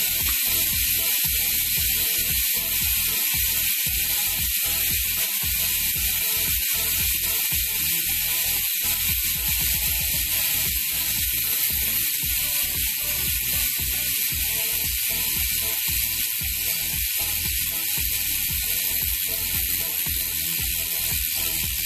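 Rear freehub of an ECC Race N85 carbon wheelset with ceramic bearings, freewheeling as the rear wheel coasts: a steady, tight, shrill ratchet buzz, the 'cricket' hub sound.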